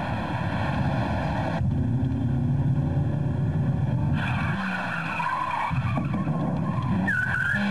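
Car driven hard with tyres skidding and squealing over the engine noise, with short squeals about five seconds in and near the end.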